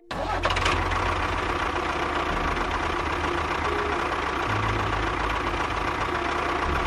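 A motor running steadily, starting suddenly and holding an even level throughout.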